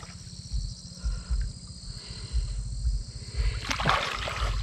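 Faint river water trickling and sloshing under a low, uneven rumble, with a brief swell of rushing noise near the end.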